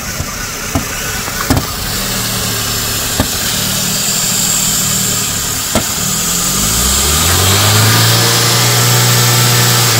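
2008 Chevrolet Spark engine just after a cold start, idling steadily, then about six and a half seconds in its revs climb on their own with no throttle and hold high: the runaway high idle that began after its EGR valve was cleaned. A steady hiss runs under it, which the owner takes for a vacuum leak near the intake manifold, and a few sharp ticks come in the first half.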